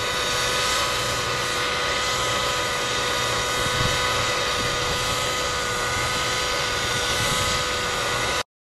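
Engine-powered model helicopter in flight: its engine and rotors make a steady, unchanging whine. The sound cuts off abruptly near the end.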